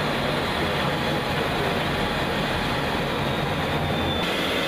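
Steady rushing rumble of jet engines and airflow, heard from inside an aircraft in flight. The deepest part of the rumble drops away about four seconds in.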